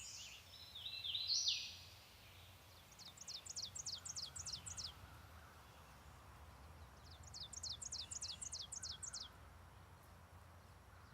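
Songbirds singing: a short burst of varied high calls, then a song of about a dozen quick, high, down-slurred notes, repeated twice a few seconds apart.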